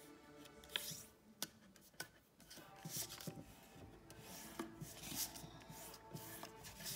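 Fingers creasing and smoothing a folded sheet of origami paper on a wooden tabletop: paper rubbing and rustling. A few sharp crackles come in the first two seconds, and the rustling grows denser after that.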